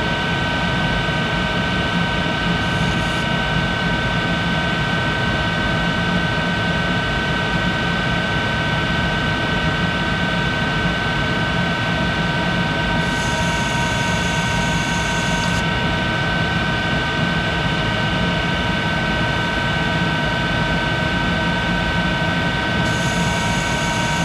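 1951 Monarch 10EE lathe running under power feed through a roughing cut: a steady machine whine made of several constant tones over a low rumble. A brief high-pitched hiss rises over it twice, about halfway through and near the end.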